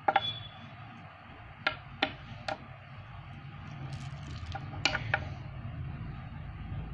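Neodymium magnet balls clicking as they snap together: a quick pair of clicks at the start, three single clicks between about one and a half and two and a half seconds in, and a short run of clicks around five seconds in, over a low background hum.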